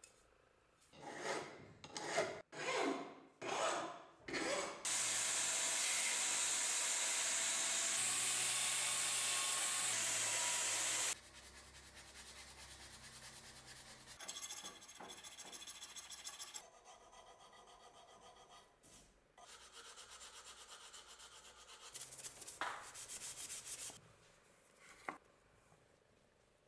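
Abrasive hand strokes on a cleaver's ash-wood handle: four or five quick rubbing strokes, then a steady loud hiss for about six seconds, then quieter rubbing and filing strokes.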